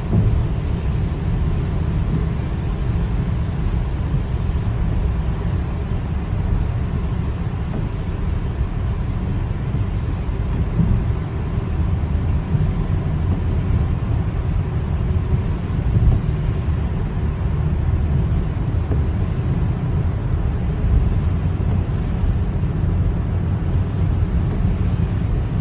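Steady low rumbling noise, with a faint steady whine above it throughout.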